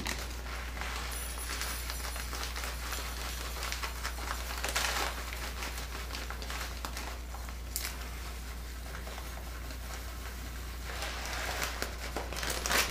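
A plastic bag of dry rice crinkling in the hands as rice is poured from it into a measuring cup, in a few short rustles over a steady low hum.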